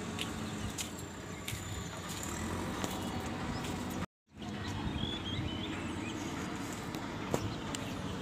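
Steady outdoor background noise with scattered clicks and a few faint bird chirps. The sound cuts out to silence for a moment about four seconds in.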